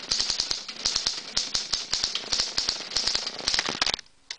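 1939 Imperial 50 desktop typewriter being typed on at speed: a rapid, uneven run of clacking key and typebar strikes, several a second, that breaks off near the end.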